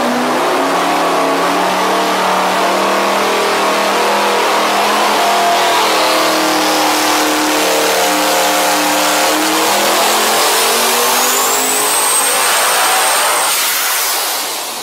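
Devel Sixteen's quad-turbo V16 engine running hard on an engine dyno. The revs climb through the pull, and a high turbo whine rises in pitch in the second half. About thirteen seconds in, the run is cut and the engine dies away.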